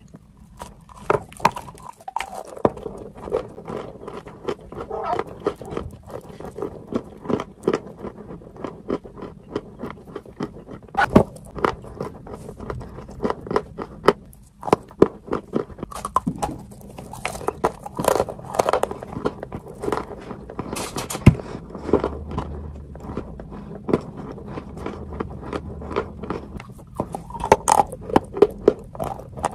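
Biting and chewing of a dry, crumbly chalk-and-clay slab close to the microphone: a dense, irregular run of sharp crunches and crumbling snaps.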